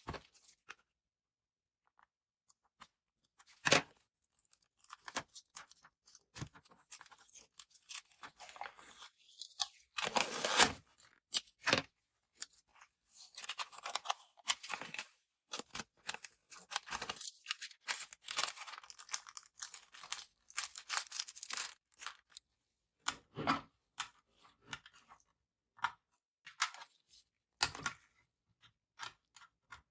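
Hands handling small parts and packaging. Scattered sharp clicks and knocks, with longer stretches of crackly rustling in the middle.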